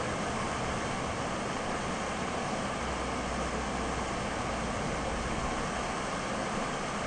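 Steady rushing of a brook's water running over rocks. A low rumble joins in about two and a half seconds in.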